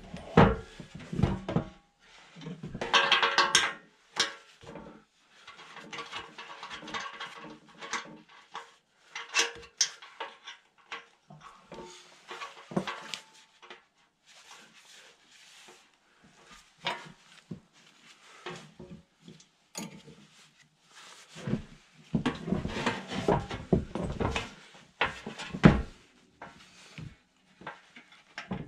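Steel springs, hooks and hardware clinking and rattling against a snow plow's steel frame as the springs are hooked into place by hand. Irregular metallic clicks and knocks, busiest in a few short spells.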